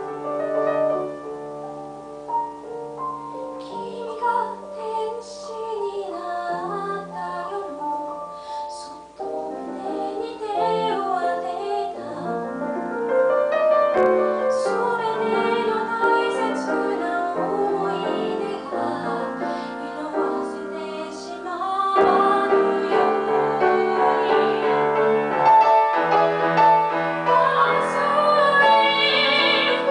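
A woman singing while accompanying herself on a grand piano. The piano plays alone at first and her voice comes in a few seconds in; the music grows louder about two-thirds of the way through.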